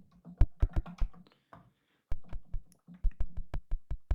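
Short synthesized clicks made from filtered noise on a software synthesizer, played as a quick run of notes, about four to six a second, with a short pause about a second in. It is a trial key-press sound effect for a handheld data-collection terminal.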